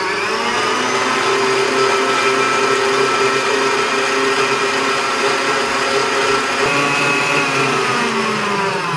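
Electric mixer whipping egg whites to soft peaks for meringue. The motor whines at a steady high speed and begins to slow at the very end.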